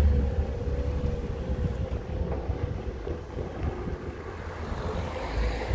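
A box van's engine running as it pulls away over the crossing, under heavy wind noise buffeting the microphone, with a steady low hum.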